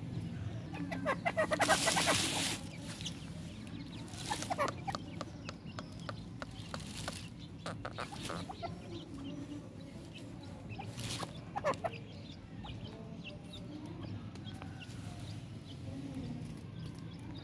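Female francolin (teetar) clucking to her chicks while they feed, with a louder rapid burst about a second in and a few shorter bursts later.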